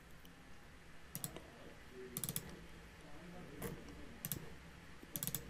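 Faint clicks from a computer mouse and keyboard, coming in short clusters of a few quick clicks, about five times.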